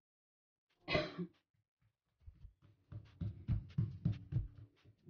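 Hands patting and pressing a potato-stuffed paratha dough out flat on a wooden countertop: a run of soft, quick thuds, about four a second, starting about two seconds in. About a second in comes a short, loud, cough-like burst.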